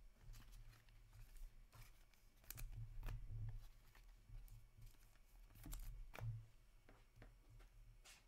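Faint handling of trading cards and a foil card pack: scattered soft clicks and rustles as cards are shuffled and the wrapper is worked open, the most distinct around the middle and about six seconds in. A low steady hum sits underneath.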